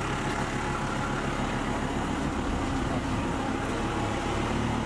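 A hearse's engine running steadily at low speed.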